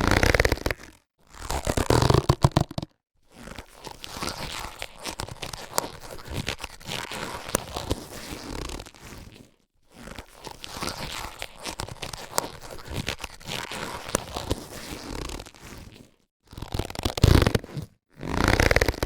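Latex surgical gloves being handled. There are short loud bursts near the start and again near the end, separated by brief silences, and in the middle two longer, quieter stretches of handling noise with small clicks.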